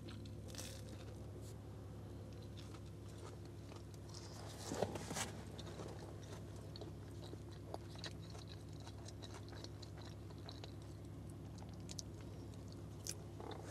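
A person chewing a mouthful of corn dog with soft, faint mouth sounds and small clicks, and one louder crunching noise about five seconds in. A steady low hum runs underneath.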